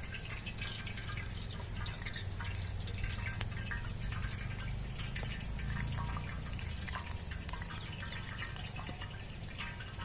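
Cooking oil heating in a kadai on the stove before frying: many small crackles and pops over a steady low rumble.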